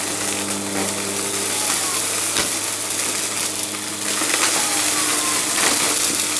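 Bissell upright vacuum cleaner running steadily, a motor hum under a strong high rush of air, as it sucks confetti and sequins off a rug with scattered ticks and rattles of the pieces going up.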